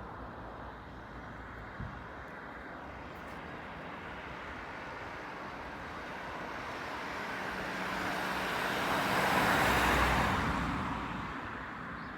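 A road vehicle passing by: its noise swells over several seconds, peaks about ten seconds in, then fades away over a steady background hum.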